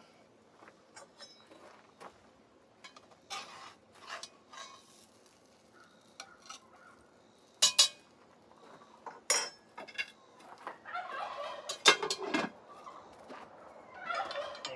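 Metal utensils clinking and scraping on cast iron and a plate as baked catfish is lifted from a cast-iron pot with a fork and a ladle goes into the étouffée pot. Scattered light clinks, with a few sharp, loud ones in the second half.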